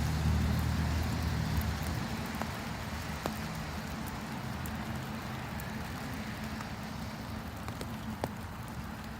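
Low engine rumble of a vehicle going by, fading steadily as it moves away, with a few faint scattered clicks.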